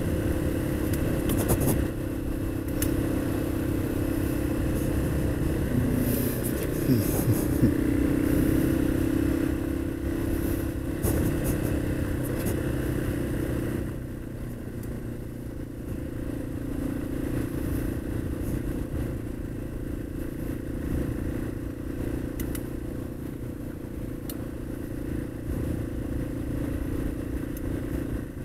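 Yamaha XT225's single-cylinder four-stroke engine running at a steady cruise on a gravel road, with clatter from the loose gravel under the tyres. About halfway through the sound grows quieter and stays lower.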